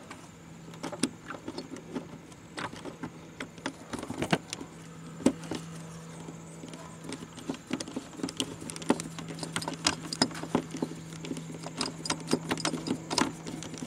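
Screwdriver with a Torx bit working a rusted screw in a car's license plate light housing: irregular small metallic clicks and ticks of the tool against the screw and sheet metal, over a steady low hum.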